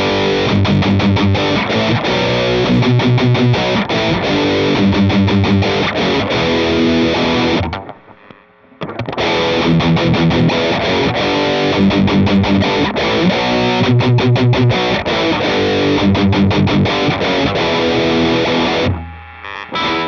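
Electric guitar with heavy overdrive playing a metal-style riff through an analogue Fulltone OCD drive boosted by a Klon-clone pedal. It breaks off for about a second near the middle, and the same riff is played again, presumably through the Line 6 HX Stomp's digital emulation of the same two pedals, which sounds very much like the analogue version.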